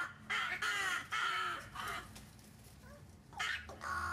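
Rooks cawing: a run of harsh, rasping caws in the first couple of seconds, a short lull, then more caws near the end.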